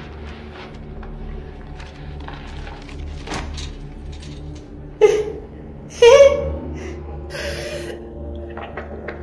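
A man's wordless vocal outburst: a sudden loud cry about five seconds in, then a louder yelp a second later that rises in pitch, followed by a hissing breath, over a low steady drone.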